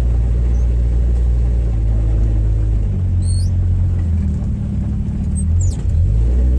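1962 Rambler Classic's straight-six engine running at low speed as the car is driven, its exhaust going through a worn-out muffler; the engine note shifts about three seconds in and again near the end.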